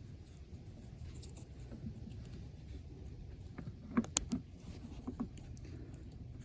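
Faint handling of plastic seatbelt-buckle parts, with a quick cluster of sharp clicks about four seconds in and a couple of lighter clicks a second later.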